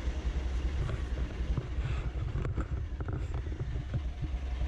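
Narrowboat diesel engine running with a steady low rumble. A few light knocks come about two to three seconds in.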